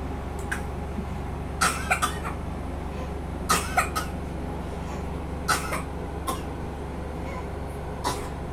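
A toddler making short coughs and squeaky little vocal sounds, a string of brief bursts every second or so, over a steady low hum.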